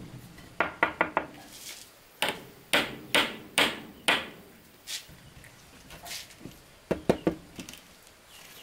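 Hammer blows on wood, irregular: a quick run of four near the start, then single strikes about every half second, then sparser knocks with a pair near the end.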